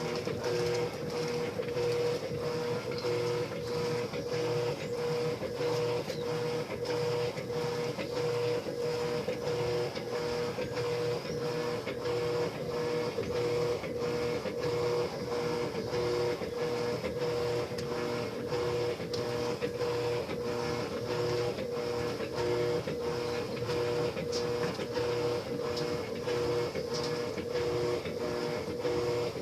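Electrolux Essential Care LES13 top-load washing machine running: a steady motor hum with a held mid-pitched tone and a regular, even clicking throughout.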